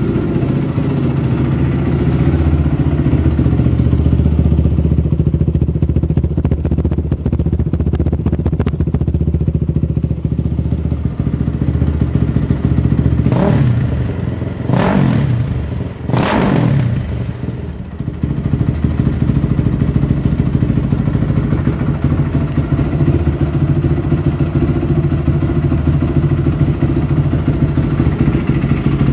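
2003 Honda CRF450R's single-cylinder four-stroke engine idling steadily, blipped three times in quick succession about halfway through, each rev rising and falling back to idle. The engine has a freshly rebuilt top end and carburettor (new rings, sealed valves, honed cylinder) and is not yet broken in or fully adjusted.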